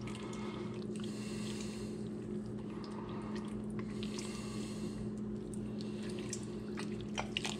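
Faint wet squelching and small clicks of raw octopus skin being pulled off the head by hand, over a steady low hum.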